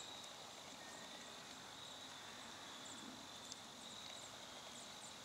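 Faint, quiet outdoor ambience with insects trilling in one thin, steady high note.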